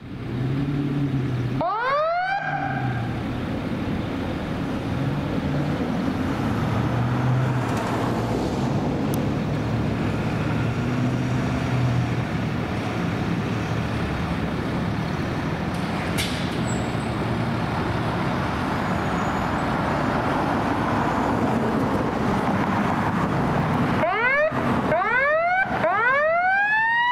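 Fire squad truck's engine running as it pulls out of the station. A siren gives a short rising chirp about two seconds in. Near the end it winds up in several quick chirps and then one long rise.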